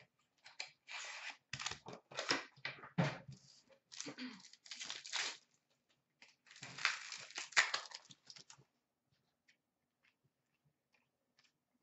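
A trading-card pack's wrapper being torn open and crinkled by hand, a run of short rips and rustles that stops about nine seconds in.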